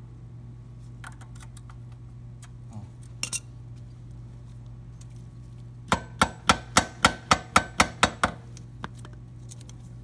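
A quick run of about ten light metal-on-metal taps, roughly four a second, each with a short ring, as a hand tool taps the pivot pin into a Buell XB footpeg and bracket; a few faint clicks of the parts being handled come earlier. The pin is not going home, which seems to be because it catches on the bottom of the peg's return spring.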